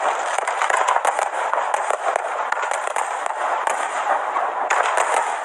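Fireworks crackling and popping in rapid, dense succession, many small bangs running together without pause.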